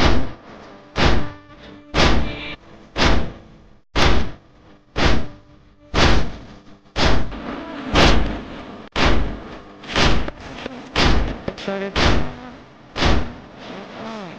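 Rhythmic matam, hands beaten on the chest in time, about one heavy slap a second, with a faint held tone underneath.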